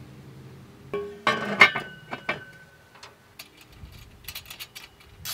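Metal hand tool clinking and clattering against the turbo and engine parts: a tight cluster of ringing metallic clinks about a second in, then lighter scattered ticks.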